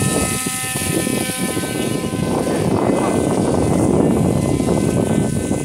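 RC paramotor trike's propeller motor running with a steady drone as it flies past close by, with a loud rumbling buffeting noise over it.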